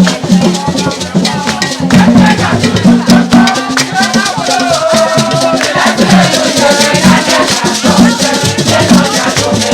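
Jama music: loud group singing over rapid shaker rattles and drums.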